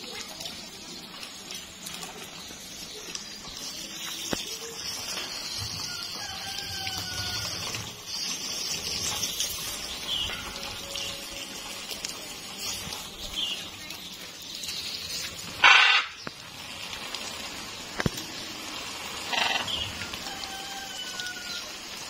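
Water spraying onto a blue-and-gold macaw and its wire cage during its bath, a steady hiss. Short bird chirps come through it, with one loud short squawk about sixteen seconds in and a smaller one near twenty seconds.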